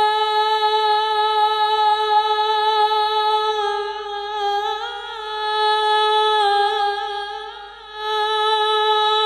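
A man's solo voice holding one long unaccompanied sung note on the syllable "yā" into a microphone, opening a sholawat. The pitch stays steady, with a couple of slight wavers in the middle.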